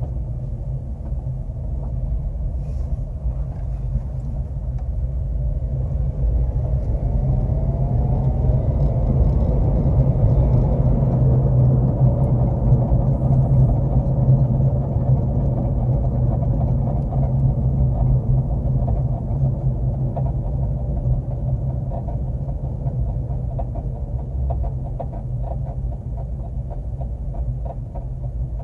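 2009 Honda Civic driving: a steady low rumble of road and engine that swells about a quarter of the way in and eases slightly near the end.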